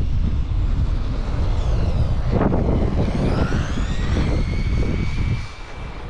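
Brushless electric motor of an RC car whining, rising in pitch as it speeds up from about three seconds in and then holding a high note, over heavy wind rumble on the microphone; a short rush of noise comes just before the whine, and the sound falls away near the end.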